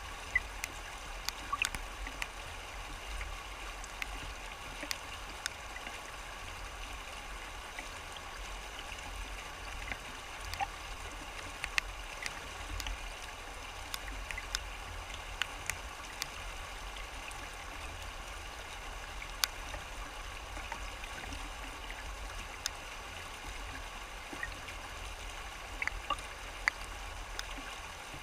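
Shallow river rapids rushing over rocks, a steady wash of water with frequent short splashes and ticks scattered through it.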